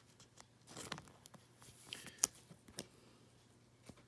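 Faint rustling of a trading card and a thin clear plastic card sleeve being handled, with a few short, sharper crinkles and taps.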